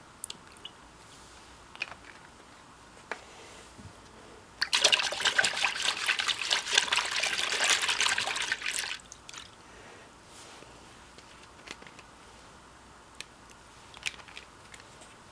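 Water poured and splashing into a plastic washbasin with shampoo in it, working up suds, loud for about four seconds from roughly a third of the way in. A few faint clicks of handling come before and after it.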